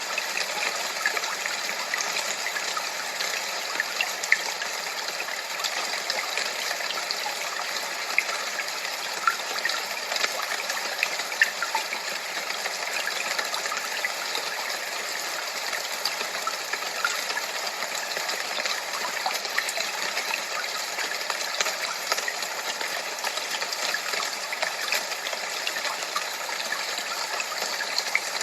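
Steady rushing noise of running water, with many small splashes and crackles sprinkled evenly through it and no deep rumble.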